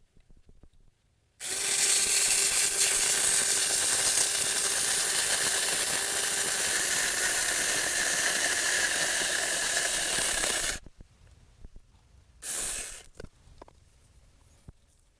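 Saker 4-inch 20-volt cordless mini electric chainsaw running and cutting through a branch for about nine seconds, then stopping sharply. It runs again briefly about a second and a half later.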